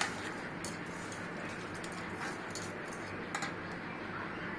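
A spoon stirring washed poha, with a few faint scattered clicks of the spoon against the utensil over a steady low background hiss.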